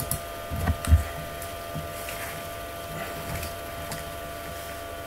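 A few sharp clicks and low thumps over a steady electrical hum, the loudest a low thump about a second in. The clicks fit a computer mouse being clicked to select a line of code.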